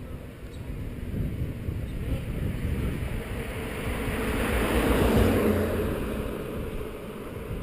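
Wind rushing over a helmet-mounted action camera's microphone while a bicycle rolls along a paved road, with a low steady rumble. The rush swells to its loudest about five seconds in, then eases off.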